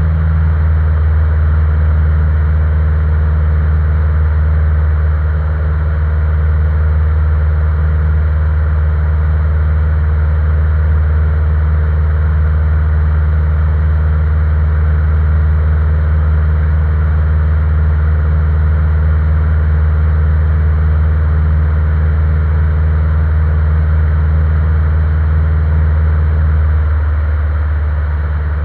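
Single-engine light aircraft's piston engine and propeller droning steadily, heard inside the cockpit in cruise flight. The drone eases slightly near the end.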